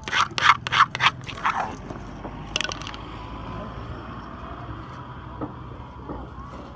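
A wooden pestle pounding in a som tum mortar: quick knocks, about four a second, that stop after a second and a half, leaving a steady background hum with one brief click.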